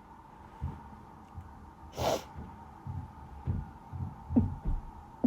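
Woman in an allergy sneezing fit: a short, sharp burst of breath about two seconds in, soft low thumps and catches of breath between, and the next sneeze starting right at the end.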